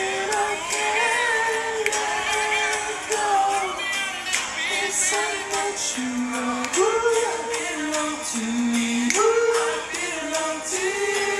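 A song playing, its sung melody moving in long held notes that step up and down in pitch, with people singing along to it.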